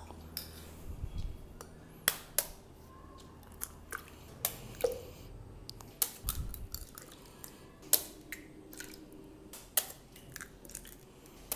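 Eggs tapped and cracked open one after another over a plastic mixer-grinder jar: scattered sharp cracks and clicks of eggshell, with a couple of dull handling thumps.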